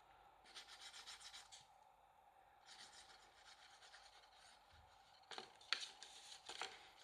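Faint rubbing and scratching of glue being spread along cardstock glue tabs, in short strokes, with three light taps near the end.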